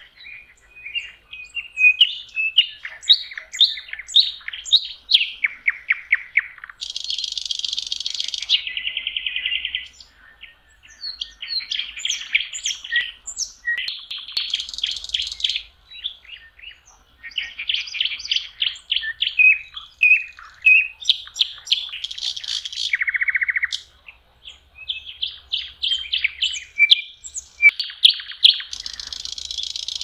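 Nightingale singing close by: a steady run of varied phrases, each a second or two long, made of rapidly repeated notes, buzzy rattles and clear whistles, with short pauses between phrases.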